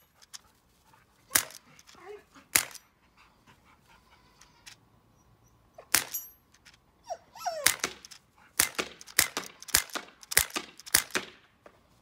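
Sig Sauer M17 CO2 .177 pellet pistol firing with blowback: three spaced shots, then a rapid string of about eight shots near the end. A dog gives a short falling whine just before the string; she is upset by the noise.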